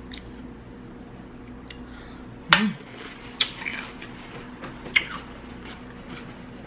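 Close-miked eating sounds: a few sharp mouth clicks and smacks while chewing, spaced a second or so apart, over a steady low hum.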